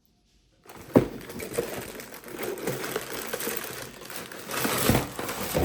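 A LEGO set's cardboard box and packaging being handled and opened: continuous rustling and crinkling with small knocks and rattles, starting with a sharp knock about a second in and getting louder near the end.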